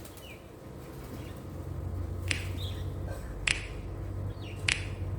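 Birds calling: short, falling chirps, with a sharp click-like call repeating about once a second from about two seconds in, over a low steady rumble.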